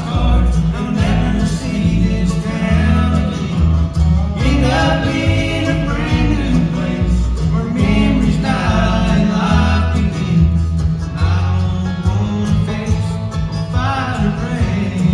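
Live bluegrass band playing a song with singing: banjo, acoustic guitar, upright bass and dobro, the bass notes walking steadily underneath.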